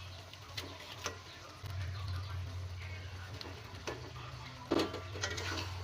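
Scattered light clicks and taps of kitchen utensils, a handful of separate knocks with one louder knock near the end, over a steady low hum.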